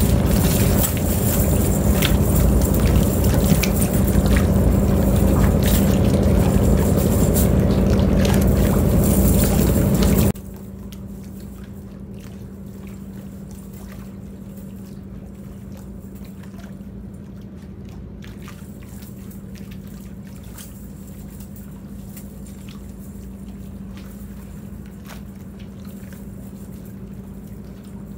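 Loud rushing noise of a fast-flowing river with a steady low hum under it. About ten seconds in it cuts abruptly to a much quieter steady background with scattered light taps and clicks as fish are picked out of a wet cast net.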